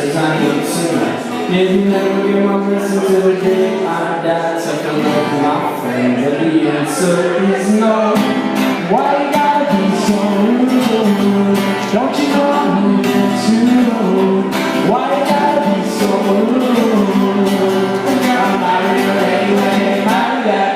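Live acoustic band: a strummed acoustic guitar keeping a steady rhythm, with a male voice singing over it.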